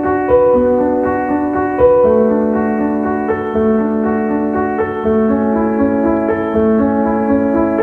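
Intro music: slow, held keyboard chords that change every second or so.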